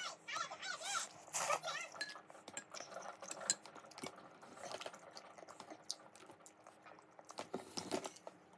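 Slurping and chewing Neoguri spicy noodles, with a metal fork and spoon clicking and clinking against a glass bowl. Faint voices are heard in the first couple of seconds.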